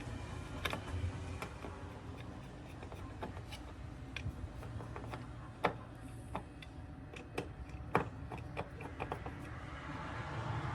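Irregular clicks and light taps of small hard objects being handled, two of them sharper about midway and a little later, over a low steady hum.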